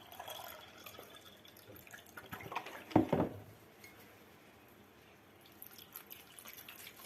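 White wine poured from a bottle over chicken pieces and potato slices in a baking dish: faint liquid splashing and dripping, with one louder thump about three seconds in.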